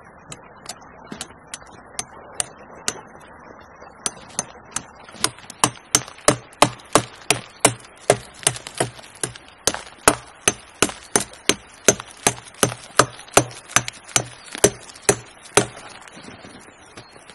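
Firewood being chopped or split with sharp, repeated strikes: a few light taps at first, then heavier blows at about two a second that stop about two seconds before the end.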